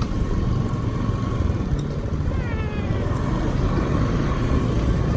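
Vehicle running on the road, a steady low rumble of engine and road noise, with a brief falling squeak about halfway through.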